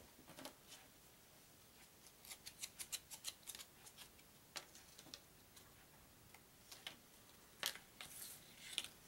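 Cardboard trivia cards being handled on a wooden table: a quick run of faint clicks about two to four seconds in, then a sharper click and a brief rustle near the end as fingers slide the cards.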